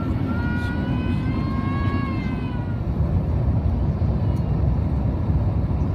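Steady low rumble of airliner cabin noise from an Airbus A350-900's engines and airflow. Over it, in the first few seconds, a faint high-pitched wavering cry rises and falls.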